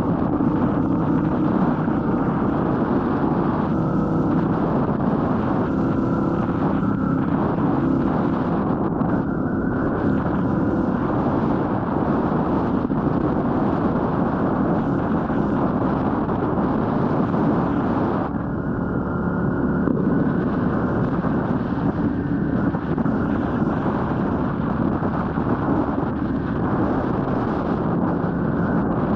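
Royal Enfield Meteor 350's single-cylinder engine running steadily under way, mixed with wind rush on the microphone. The engine pitch shifts a little and dips briefly about eighteen seconds in.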